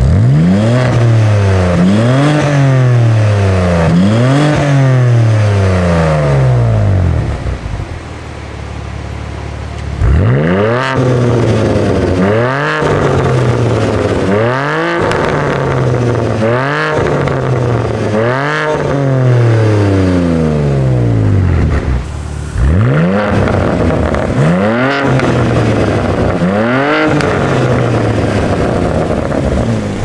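BMW G82 M4's twin-turbo inline-six, breathing through a Fi Exhaust valvetronic catback, revved hard about eleven times. Each blip rises quickly and sinks back toward idle, in three runs separated by short idles.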